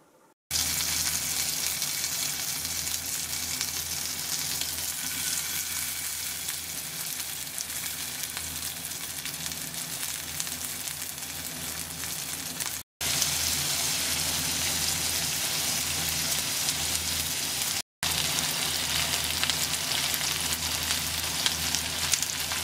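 Pork belly frying in a pan, with kimchi and potato added later: a dense, steady sizzle that cuts off abruptly for a moment twice.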